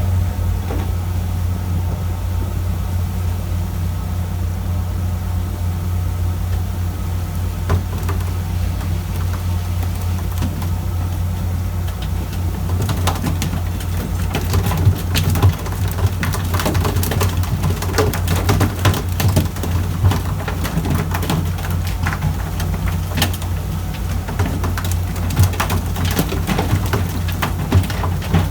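Fishing boat's engine running with a steady low drone, joined about halfway through by irregular clicking and rattling.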